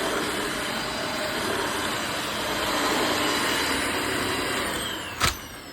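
Dyson DC18 upright vacuum cleaner running steadily, then switched off about four and a half seconds in, its motor winding down with a falling whine. A sharp click comes near the end.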